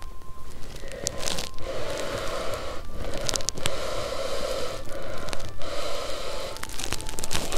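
Noodles being slurped from a cup: a run of noisy slurps, each lasting about a second, with short breaks between them.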